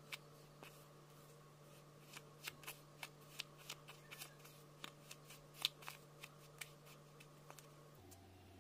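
Fingertips pressing and poking damp sand in a small plastic tub: irregular crisp clicks and crackles, loudest about two thirds of the way in, over a faint steady hum.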